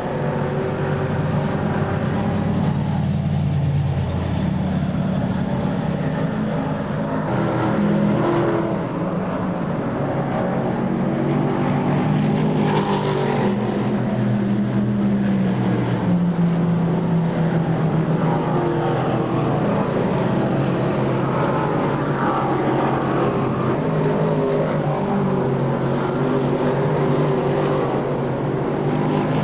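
Dirt modified race car's V8 engine running hard at racing speed. Its pitch rises and falls repeatedly as the car laps the track.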